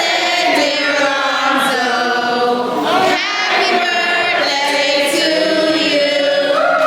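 A group of people singing together in unison, many voices on long held notes.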